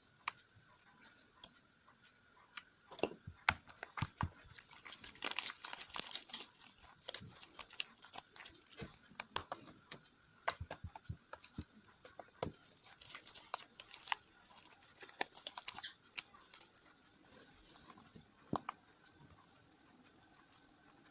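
Homemade glue-and-borax slime being stirred and squished by hand: irregular wet clicks and sticky squelches, busiest in the first two-thirds and thinning out toward the end.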